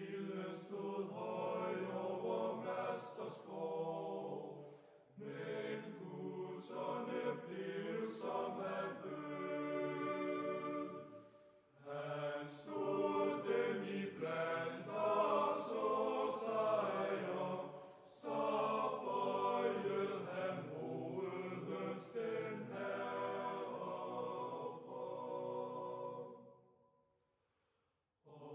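Background music of a choir chanting in long sustained phrases, with a short break every six seconds or so, fading out near the end.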